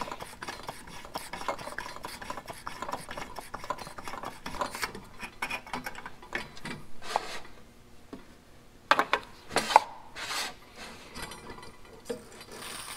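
Plunger air pump of a Coleman Dual Fuel 533 camp stove being worked in rapid strokes, a rasping rub, pressurizing the fuel tank. The strokes thin out and stop about halfway through, and a few sharp clicks and knocks follow about nine to ten seconds in.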